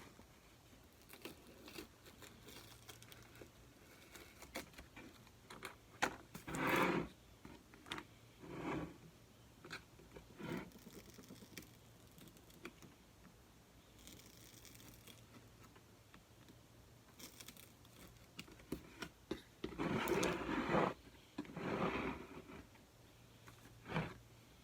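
Hobby knife cutting the excess of a table tennis rubber sheet along the edge of the paddle blade: scattered light clicks and scrapes, with a few longer cutting strokes about six seconds in and again around twenty seconds in.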